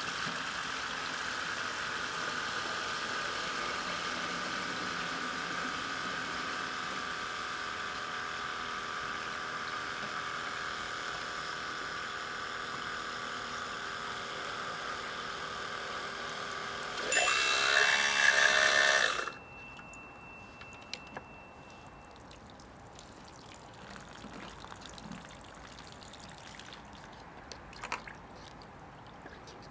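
Water pump with a 3D-printed grey impeller, driven by a 12 V 775 DC motor, running flat out with a steady whine while water pours through the hose into a plastic jug. About seventeen seconds in there is a louder rush for about two seconds, then the pump stops.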